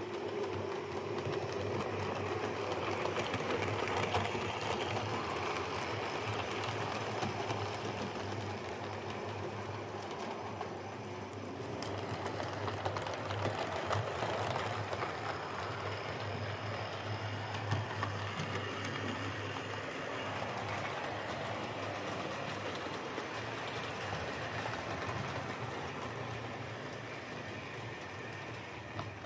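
Hornby M7 OO gauge model tank locomotive running steadily round a model railway track, its DC motor humming. It is running well after a motor service and a fix to a displaced traction magnet that had been pulling on the front left wheel.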